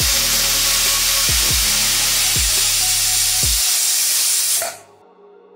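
Pressure cooker whistle blowing: a loud steam hiss escaping past the weight valve, which cuts off suddenly near the end.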